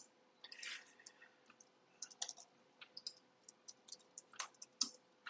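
Faint typing on a computer keyboard: a run of short, irregular key clicks.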